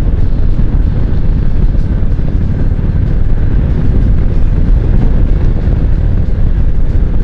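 Kawasaki Vulcan cruiser motorcycle at steady road speed, its engine running under a heavy, steady rumble of wind on the microphone.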